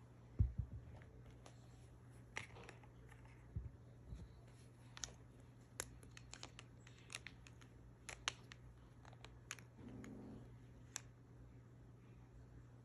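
Scattered light clicks and short rustles of toy packaging being handled, with a low thump about half a second in.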